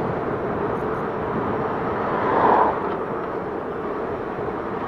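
Motorcycle riding at road speed: wind rush on the microphone over the steady running of a 2006 Yamaha FZ6 Fazer's 600 cc inline-four, swelling briefly about halfway through.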